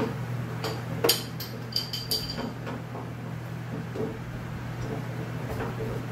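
Steady low electrical hum in a workshop, with a quick run of light metallic clinks about a second in.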